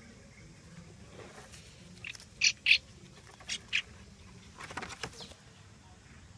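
Small bird chirping: four short, sharp, high calls in two quick pairs, then a brief scratchy noise about five seconds in.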